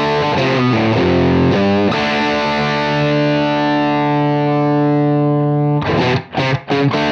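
Overdriven electric guitar through a UAFX Lion '68 Super Lead pedal's Marshall Plexi amp emulation with its natural room ambience mixed in: a few chords, then one chord left ringing for about four seconds, then short choppy chords near the end.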